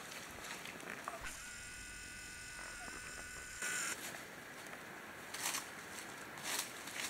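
A camcorder's zoom motor whirs steadily for about two and a half seconds as the lens zooms in, ending in a short brighter whine. After it come a few brief rustles in dry leaves and grass from wild turkeys foraging.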